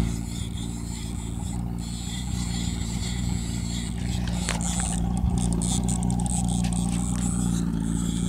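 Boat's outboard motor running steadily at low speed, an even low hum with no change in pitch.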